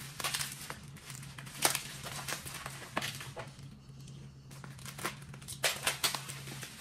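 Plastic bubble-wrap packaging crinkling and crackling in irregular bursts as it is handled and torn open by hand. A faint steady low hum runs underneath.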